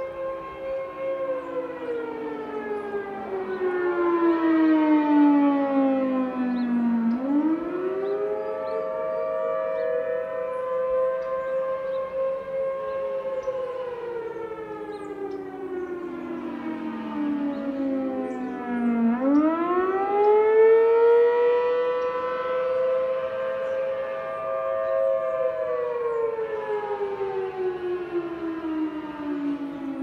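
Several outdoor storm warning sirens, among them a Federal Signal Thunderbolt, sounding a wail together at different pitches. The main tone sinks slowly, climbs back quickly about 7 seconds in and again about 19 seconds in, holds high and starts to sink again.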